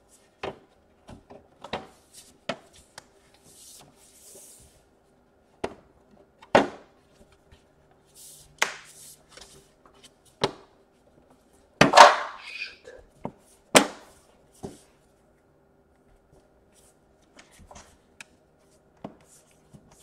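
Scattered clicks and knocks of hands pressing and handling a laptop's aluminium bottom cover on a desk, seating it into place. The loudest knocks come about twelve and fourteen seconds in.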